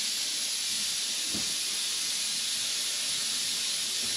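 A steady high-pitched hiss, unchanging throughout, with one soft thump about a second and a half in.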